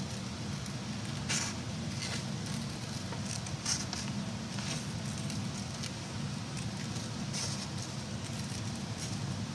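Scissors cutting through folded paper: irregular snips with paper crackle, the sharpest about a second in and just under four seconds in. A steady low hum runs underneath.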